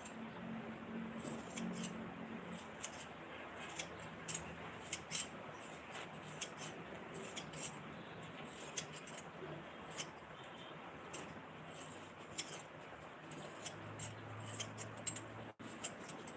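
Scissors snipping repeatedly through a material held in the hands, with short sharp irregular snips about one or two a second.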